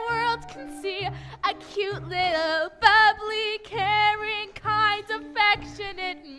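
Female voices singing a musical-theatre song, holding notes with vibrato, over an instrumental accompaniment with a bass line.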